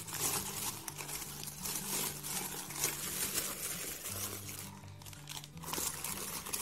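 Plastic packaging bags crinkling and rustling as hands pull them open and handle the wrapped items inside, with a short lull a little before the end.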